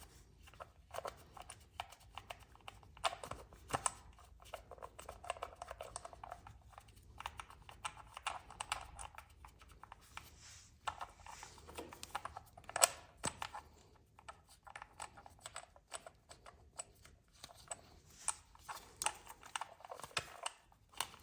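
Irregular light clicks and taps of a tool and metal parts as the spring-loaded transmission filter cover of a Honda Rebel 1100 DCT is worked loose and pulled off, with one sharper click about 13 seconds in.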